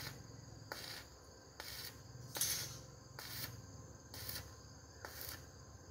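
Insects chirping in a faint, steady high drone, with short sharp pulses about once a second.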